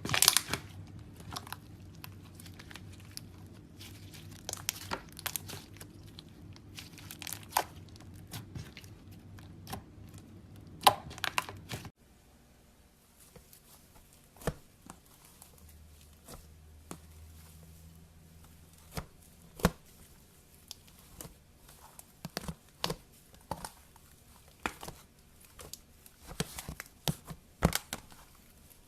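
Slime being squeezed, stretched and pressed by hand, giving many irregular sharp clicks and pops. About 12 s in the sound cuts to a quieter take with sparser clicks.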